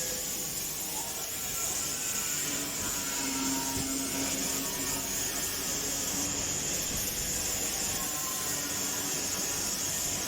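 Grinder fitted with a sanding disc running steadily and grinding, a constant high hiss of the disc.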